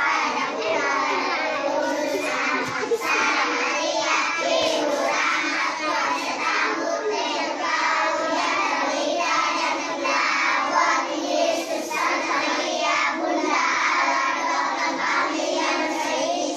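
A class of young schoolchildren singing together in unison.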